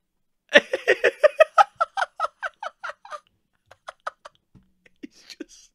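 A young man laughing hard: a quick run of about fifteen "ha" bursts, then sparser, fainter chuckles near the end.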